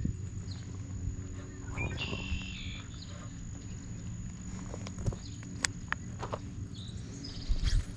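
Outdoor ambience: a steady low rumble under a thin, steady high-pitched tone, with a brief chirp about two seconds in and a few sharp clicks about five to six seconds in.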